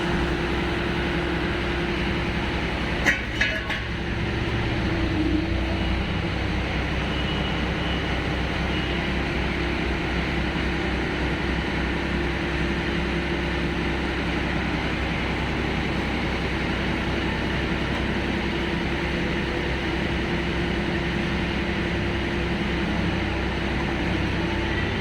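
A machine motor running steadily with a constant hum, and a couple of sharp metal clinks about three seconds in.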